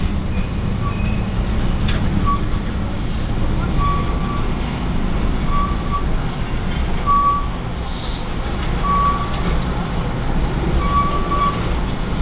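Freight cars rolling slowly past with a steady low rumble, the train shoving back into the yard. A short, high electronic beep repeats about every one and a half seconds over it.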